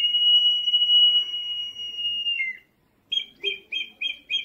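Peruvian ceramic whistling vessel imitating a kestrel's call: one long, steady, high whistle with a short glide at each end, then, about half a second after it stops, a fast even run of sharp chirps, about three or four a second.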